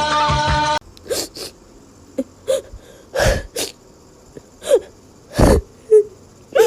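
Music cuts off about a second in. Then come a series of short, sharp, sneeze-like bursts of breath, some with a brief squeak.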